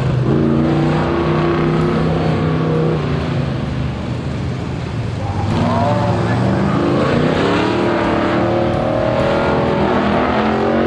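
Early-1960s Chevrolet C10 pickup's engine revving as it is driven hard through an autocross course: revs hold, ease off in the middle, then climb again about five and a half seconds in and stay high.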